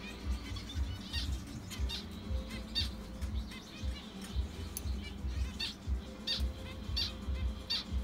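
Zebra finches giving short, high chirps every second or less, over background music with a steady low beat.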